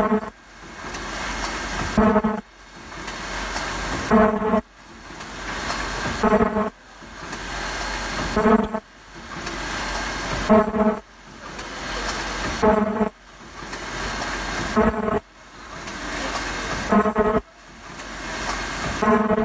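Rug-material layer welding machine running in a regular cycle. A hiss builds for about two seconds, ends in a short buzzing tone, then cuts off sharply. The cycle repeats about every two seconds, some nine times.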